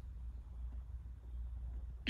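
A steady low hum of background noise with nothing else to be heard: a pause in speech on a recording.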